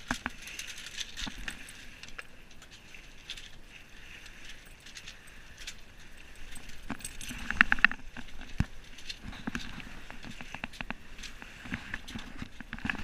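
Scattered clicks, knocks and rattles of sailboat gear, with a quick run of clicking about seven and a half seconds in.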